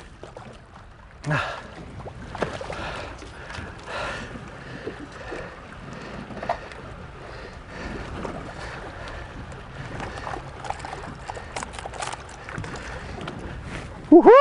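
Sea water sloshing and splashing against a fishing boat's hull while a tuna is held in the water alongside for release, over a steady wash of wind and sea noise. The small splashes come irregularly.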